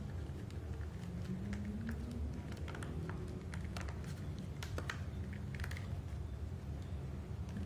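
A silicone sleeve being stretched and worked onto a plastic remote control: irregular small clicks, taps and rubbing from the handling, over a steady low hum.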